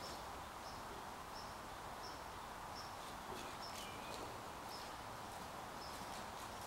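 Faint ambience: a steady hiss with a short, high-pitched chirp repeating evenly about every 0.7 seconds, and a single bird call about four seconds in.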